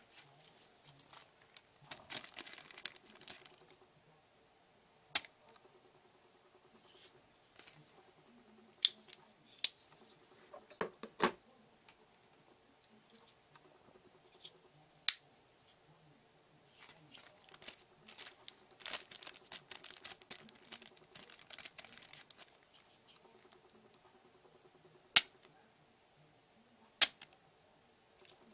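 Spyderco folding knives being handled: sharp clicks, about seven spread over the stretch, of blades snapping open and shut, with soft rustling from handling in between.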